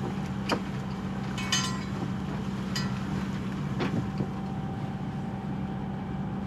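Sailboat's inboard diesel engine running steadily while motoring, a low even drone. A few light clicks and a brief metallic rattle about a second and a half in.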